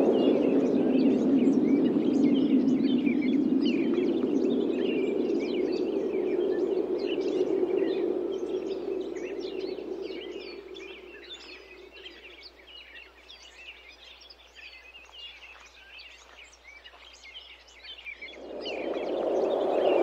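Wind blowing in a low rush that dies away about halfway through and swells back up near the end, with many small birds chirping throughout.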